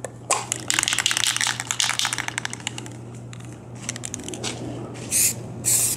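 Aerosol spray-paint can rattling as it is shaken, its mixing ball clacking rapidly for a couple of seconds, then two short hissing sprays near the end.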